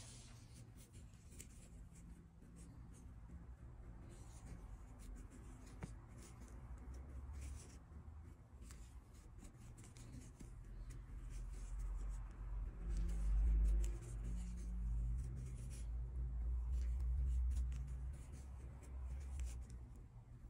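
Soft rubbing and scratching of acrylic-looking yarn being drawn through stitches by a metal crochet hook close to the microphone, with low handling rumble from the hands that grows louder in the second half.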